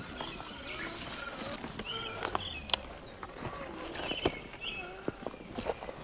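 Woodland ambience of birds chirping and insects, with a few sharp clicks and knocks, the loudest about three and four seconds in, as a scale RC crawler works over rocks.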